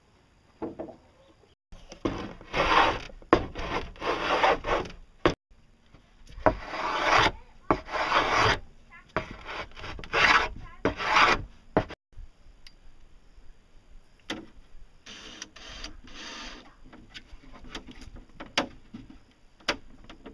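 Wood rubbing and scraping in a series of long strokes, with scattered sharp knocks; quieter after about twelve seconds in.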